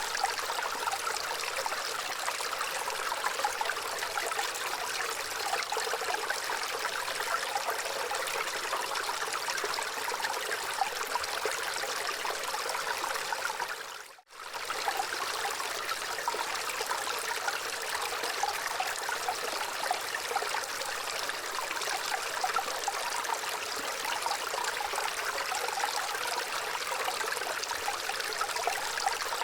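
Gentle running water flowing and trickling steadily, with no pitch or rhythm. About halfway through it dips out for a moment and comes straight back.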